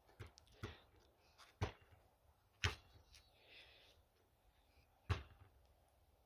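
Basketball bouncing on an asphalt driveway: about five separate bounces at uneven gaps, the loudest about two and a half and five seconds in.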